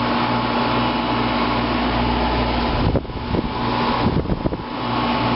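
1995 Fedders window air conditioner running on high cool: a steady fan and compressor hum with fixed tones and a gentle low pulse. From about three seconds in, a stretch of low rumbling and a few knocks breaks in for about a second and a half.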